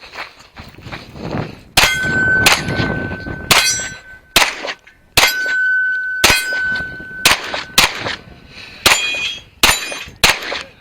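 Springfield XD(M) pistol firing about a dozen shots at roughly one a second, with struck steel targets ringing; a sustained ring carries under the shots through the middle of the string.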